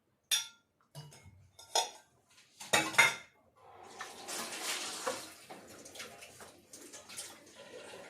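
Metal kitchen utensils clinking: a spoon and sieve knock against a metal vessel in a few sharp clinks, then a few seconds of liquid being poured as strained tamarind water goes into the pot.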